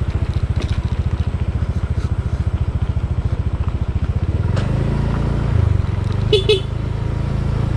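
Small motor-scooter engine running while riding, a fast even low chugging. About four and a half seconds in it smooths into a steadier drone as the revs rise.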